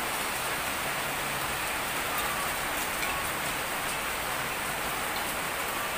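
Steady rain falling, an even hiss with no break.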